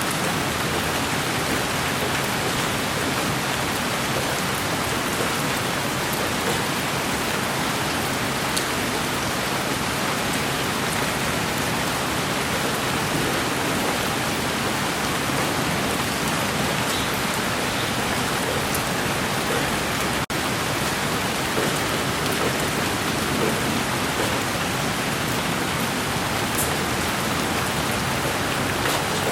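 Steady rain falling: a continuous even hiss with scattered faint drop ticks, and a momentary dropout about twenty seconds in.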